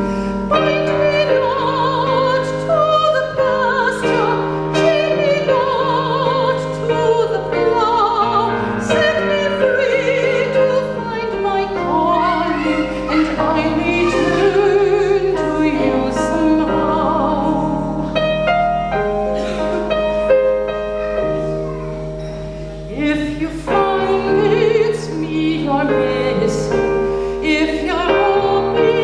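A woman singing with a wide vibrato in a classical style while accompanying herself on a digital piano.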